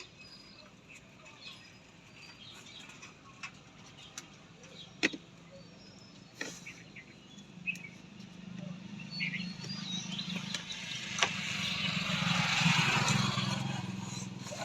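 A motor vehicle passing by, its noise swelling through the second half and fading near the end. Birds chirp in the background, and there are a few sharp clicks.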